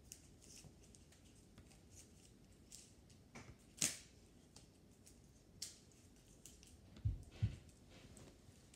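Toy bow and arrow being handled and shot: faint clicks and rustles, a sharp snap about four seconds in, and two dull thumps a little after seven seconds.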